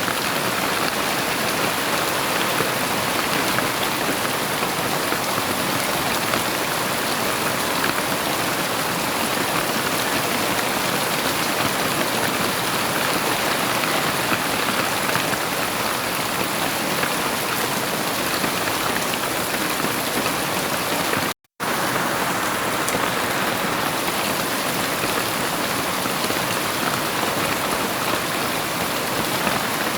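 Heavy rain falling steadily, a dense even hiss of drops. About two-thirds of the way through, the sound cuts to silence for a fraction of a second and then resumes.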